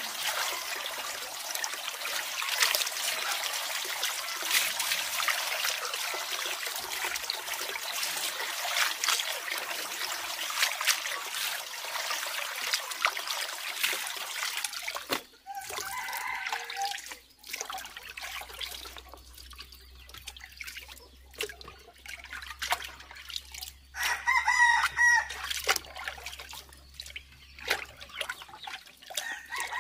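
Water pouring and splashing into a wooden tub as hands wash chayote greens, for about the first half; the pouring then stops, leaving small splashes. A chicken calls around the middle, and a rooster crows loudly about three quarters of the way through.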